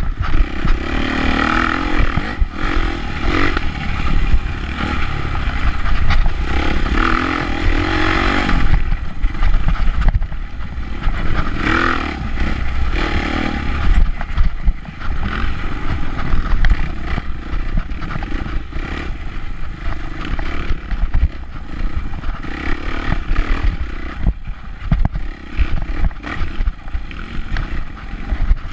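Off-road dirt bike engine revving hard in surges for the first several seconds, then running lower, with the bike clattering and knocking over bumps on a rough trail.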